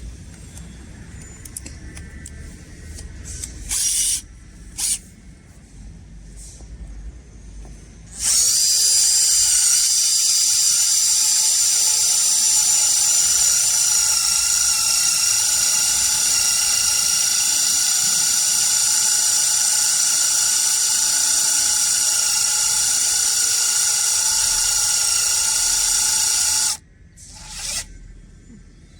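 Electric drill fitted with a positioning drill bit. It gives two short blips, then runs for about eighteen seconds at one steady speed with a high whine, and stops abruptly near the end.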